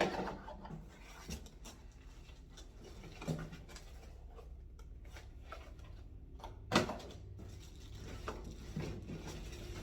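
Plastic blower tubes and packaging being handled out of a box: scattered rustles, rubs and light knocks, with one sharp knock about seven seconds in.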